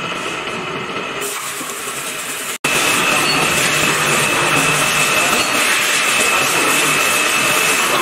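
XW6332 universal milling machine running with its spindle and automatic quill feed engaged: a steady mechanical whir from the head's gearing with a high, even whine. It breaks off for an instant about two and a half seconds in, then comes back louder with the whine clearer.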